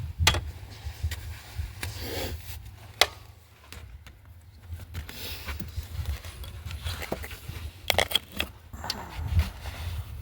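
Scattered metallic clinks, knocks and scrapes of hand tools and parts during work on a car's oxygen sensor, with a sharp knock about three seconds in and a cluster of clicks near the end, over a steady low rumble.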